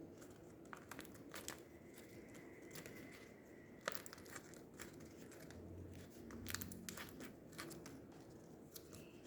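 Homemade tape fidget being pressed and squeezed by hand: faint, irregular crinkling clicks.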